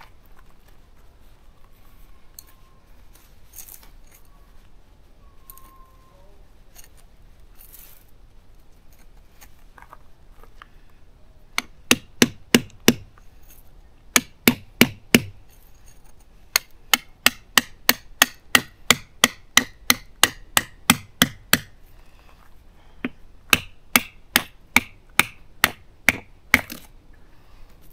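Tent stakes being hammered into gravel ground: runs of sharp, ringing strikes, about two or three a second, starting about twelve seconds in and pausing briefly between stakes.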